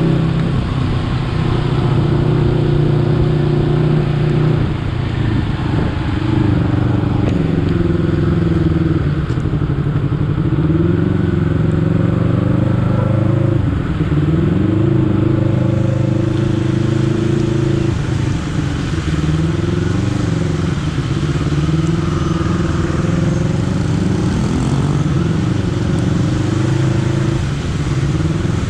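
Honda CBR250RR motorcycle engine running under way, its pitch rising and falling several times with throttle changes and gear shifts.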